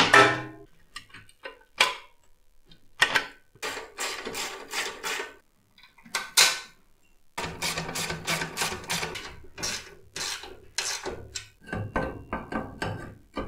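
Metal parts of a Piaggio Ciao moped's rear assembly clicking and knocking as they are fitted by hand, with a dense run of rapid clicks in the second half.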